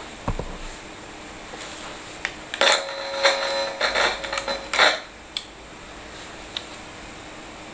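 Handling noise on an electric guitar: a thump, then a couple of seconds of clattering clicks and knocks, some leaving a short ringing string tone, over a faint steady hum.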